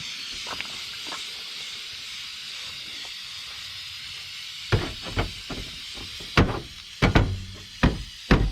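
Aerosol spray-paint can hissing steadily as paint goes onto the fender. From about halfway through, a series of sharp knocks, about seven, louder than the hiss.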